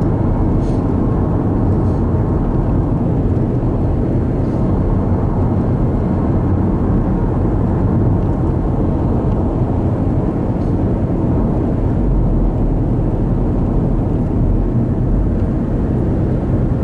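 Steady rumble of road and engine noise inside a car driving along a highway, level and unbroken.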